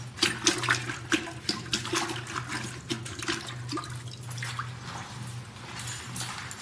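Water splashing and sloshing in a toilet bowl as a long-handled squeegee is swished around in it, in irregular splashes that thin out after about four seconds.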